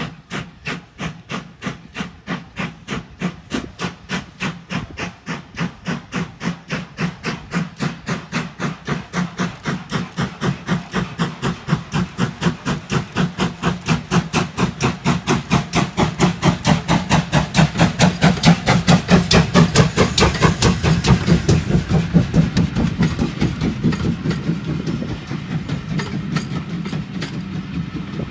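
Exhaust beats of GWR Modified Hall 4-6-0 steam locomotive Foremark Hall, a two-cylinder engine, working hard as it approaches. The sharp, regular chuffs grow steadily louder and quicker, from about two and a half to about four a second, and are loudest about two-thirds of the way through. Near the end they fade into a steadier rumble.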